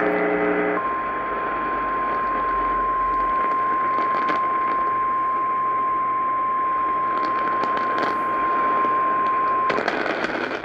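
Emergency Alert System alert tone over AM radio: a single steady high tone, the NOAA Weather Radio 1050 Hz warning tone, held for about nine seconds before it cuts off, over constant AM static and crackle. It comes just after a brief buzzy burst at the very start and marks the start of a flash flood warning broadcast.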